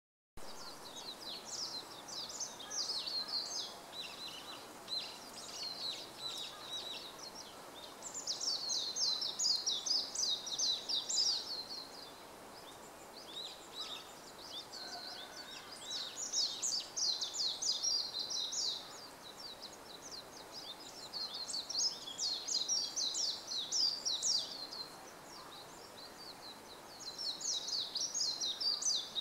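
Warbling white-eye (Japanese white-eye) singing its territorial song: long, rapid twittering phrases of high notes, each lasting a few seconds, repeated after short pauses about five times.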